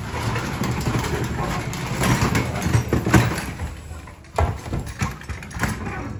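Wheeled canvas mail hamper cart, loaded with parcels, pushed across a tiled floor: its casters rumble and rattle, with a sharp knock a little over four seconds in.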